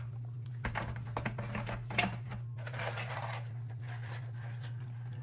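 Plastic clicks and knocks as the lowest media tray of a Fluval FX6 canister filter is handled and lifted out, with softer rustling after, over a steady low hum.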